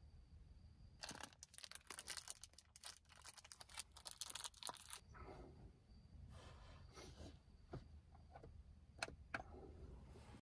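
Bedding and clothing rustling as a person shifts about lying down: a dense run of crinkly rustles for several seconds, then softer rustling, with a couple of sharp clicks near the end.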